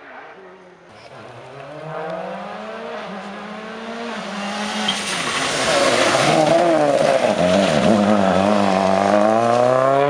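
Rally car engine approaching hard and growing from faint to loud, revs climbing through the gears, dipping briefly under braking or a shift change, then climbing again near the end.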